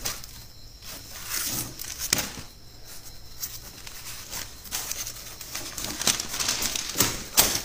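Newspaper being handled and leafed through: paper rustling and crinkling in irregular bursts, with a sharper rustle near the end.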